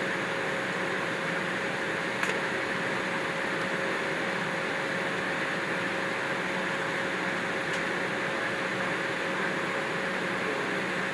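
Steady cabin hum inside an Embraer E190 as it starts to taxi, its GE CF34 turbofans at idle and the cabin air-conditioning running, with a constant mid-pitched tone through it. One light click about two seconds in.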